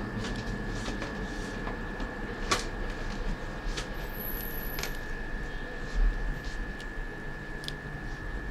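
Light, scattered clicks of metal tweezers working on the parts inside an opened iPhone 6 Plus, the sharpest about two and a half seconds in, with a dull thump about six seconds in. Under them runs a steady high-pitched whine and a low hum.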